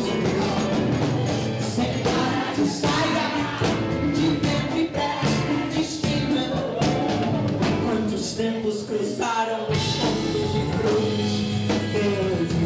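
Live Brazilian pop band performing, a lead singer's voice carrying the melody over the band. The bass drops out for a moment about nine seconds in, then comes back.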